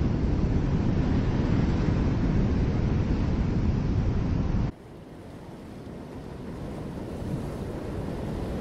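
Ocean surf and wind making a loud, steady low rumble. A little before five seconds in it cuts off abruptly to a quieter surf-and-wind noise that slowly builds.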